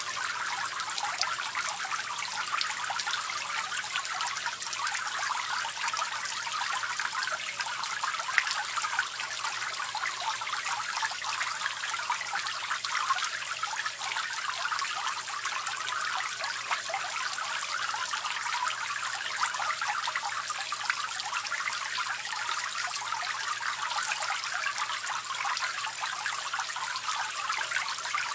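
Small cement tabletop fountain running: water trickling and splashing steadily from two spouts into the basin below.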